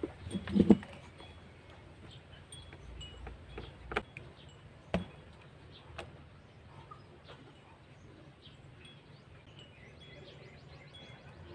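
Scattered clicks and light knocks of a small screwdriver and hands working on a homemade PVC airsoft gun as it is taken apart, with single sharp ticks about four, five and six seconds in. Faint bird chirps in the background.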